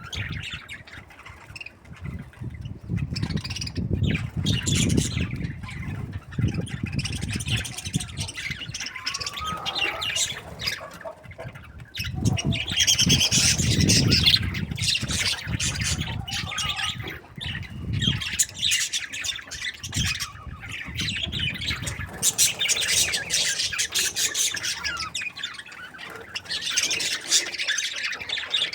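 A group of budgerigars chattering and squawking continuously in rapid, overlapping high-pitched calls, over a low rumbling noise.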